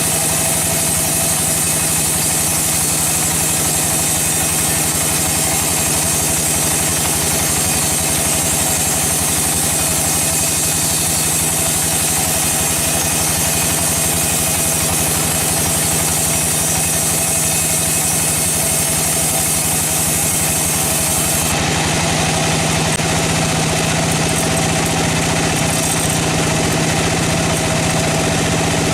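Sawmill machinery engine running steadily with a constant hum. About three-quarters of the way through, the high hiss drops away and the low drone gets stronger.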